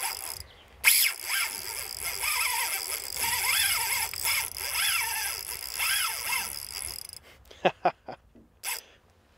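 Spinning reel's drag buzzing as a hooked fish pulls line off, the pitch rising and falling as the run speeds up and slows. It stops about seven seconds in, followed by a few sharp clicks.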